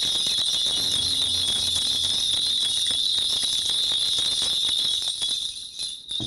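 Korean shaman's ritual bell rattle, a cluster of small metal bells on one handle, shaken steadily in a dense continuous jingle that thins out about five seconds in and stops near the end.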